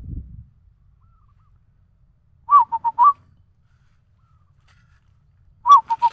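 A person whistling an imitation of the zebra dove's (perkutut) cooing call. Two short phrases about three seconds apart, each a few quick notes on roughly one pitch, ending on a rising note.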